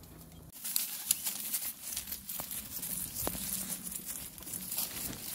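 Dry leaves and twigs crunching and crackling under a pushchair's wheels and footsteps on a leaf-covered dirt path. The crackle starts about half a second in and carries on as a dense stream of small clicks.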